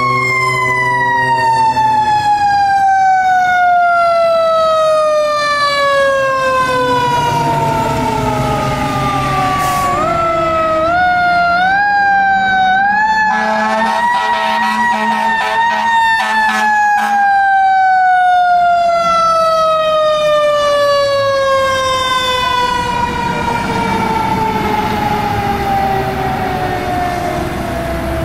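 Fire engine's mechanical siren, a Federal Q type, winding slowly down in pitch. Around the middle it is spun back up in several short steps, held near the top while a lower horn-like tone sounds, then let coast down again.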